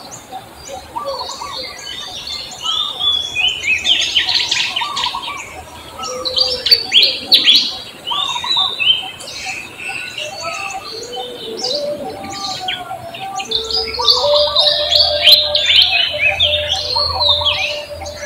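Many birds chirping and calling over one another, a dense chorus of short, quick, falling chirps, with some lower, longer held notes in the last few seconds.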